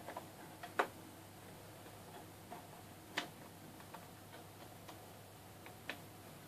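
Sparse sharp clicks and light knocks of plugs and cables being pulled and handled at a frozen Raspberry Pi to power-cycle it. Three louder clicks come about a second in, just after three seconds, and near the end, with fainter ticks between them.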